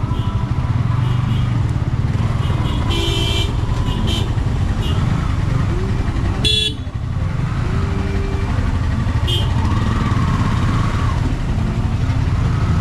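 Motorcycle engine running at low speed in stop-and-go traffic, with vehicle horns honking in short blasts several times; the loudest is a sharp blast about six and a half seconds in.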